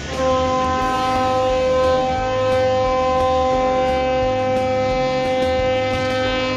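Ship's horn sounding one long, steady blast that comes in just after the start, over a low rumble of churning water along the hull.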